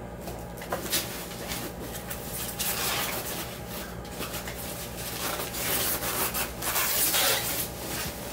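Rustling and rubbing of wrapping as a motorcycle helmet is unwrapped and pulled out of its bag: irregular crinkles and scrapes, busiest a little past the middle.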